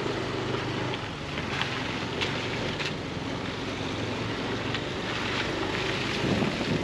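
Yamaha Aerox 155 scooter's single-cylinder engine running while riding, under steady wind noise on the microphone, with a few sharp clicks in the first half.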